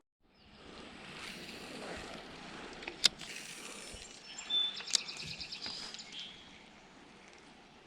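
Steady rush of a flowing creek, with a bird singing briefly about halfway through and two sharp clicks, near the 3 and 5 second marks.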